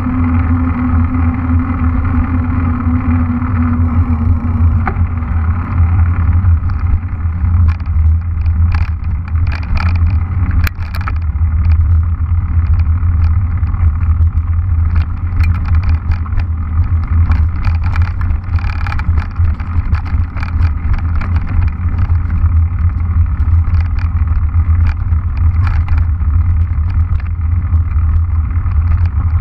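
Wind rushing over a mountain bike camera's microphone as the bike rolls along, heavy and rumbling. From about a quarter of the way in, frequent clicks and rattles join it as the tyres roll over rough, gravelly ground.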